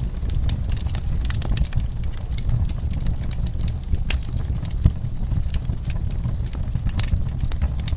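Wood fire crackling in a fireplace: irregular sharp pops and snaps over a low steady rumble, with one louder pop about five seconds in.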